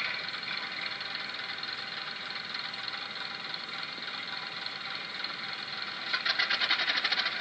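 Sound decoder in a model Fell diesel locomotive, played through its small speaker: recorded diesel engine sound running steadily after the second auxiliary engine start. About six seconds in, the first main engine starts with a loud, rapid run of knocks.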